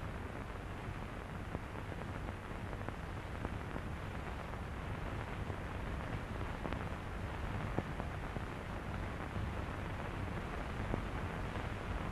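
Steady hiss and crackle of an old 1930s film soundtrack, with a few faint clicks.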